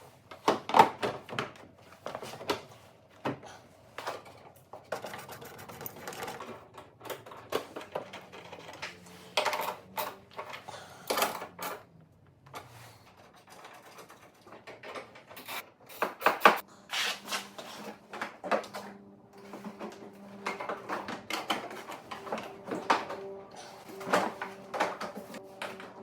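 Irregular plastic clicks, taps and knocks of hands and tools working on a car headlight and its adjuster mechanism.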